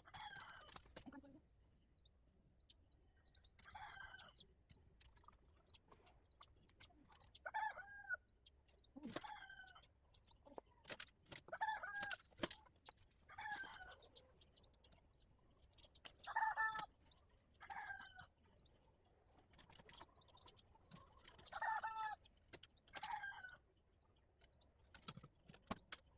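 Chickens calling: a dozen or so short pitched calls, each about half a second long, repeated every couple of seconds, with a few sharp clicks between them.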